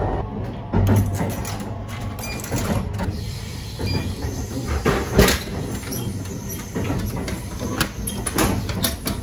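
Steady low rumble of a moving express train carriage, under knocks and clicks from an on-board drink vending machine. The loudest knock, about five seconds in, fits a bottle dropping into the dispensing tray, and near the end there are clicks as the clear plastic tray flap is pushed open.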